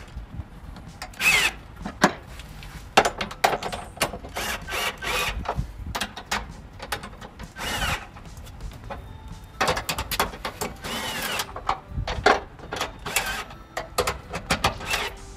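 Cordless drill run in short bursts, its motor whine rising and falling, with sharp knocks between. It is driving the mounting bolts in only part way rather than cranking them all the way down.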